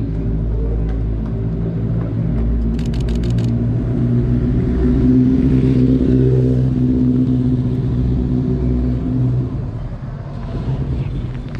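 A motor vehicle's engine running close by as a steady low drone, swelling through the middle and easing off near the end. A quick run of sharp clicks comes about three seconds in.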